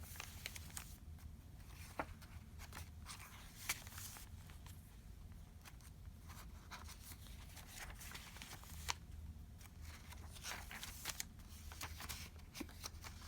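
Paper rustling and soft taps as the pages, pockets and tags of a handmade junk journal are handled and turned, with scattered short crinkles over a steady low hum.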